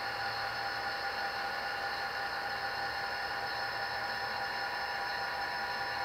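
HO scale model diesel locomotives running slowly under power, giving a steady whirring hum with a few constant tones.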